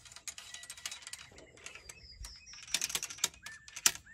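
Steel ramrod clinking and tapping in the barrel of a .58 calibre rifle musket as a Minié ball is rammed down onto the powder: a run of sharp metallic clicks and knocks, loudest near the end.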